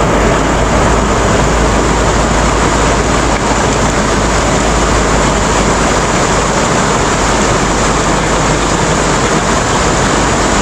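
Rushing river rapids: fast-flowing floodwater running over rocks, a loud steady roar.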